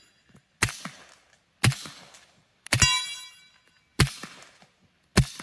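Five suppressed shots from a Colt 1911 .45 ACP pistol fitted with a SilencerCo Octane 45 suppressor, about a second apart, each a sharp crack. A steel target plate rings briefly after the third shot.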